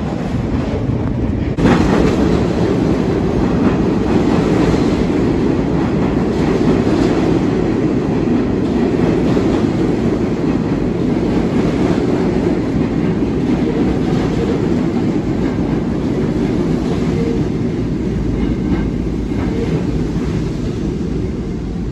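R68A subway train running past the platform: a steady, loud rumble of steel wheels on rail with rhythmic clacking. It gets louder about two seconds in.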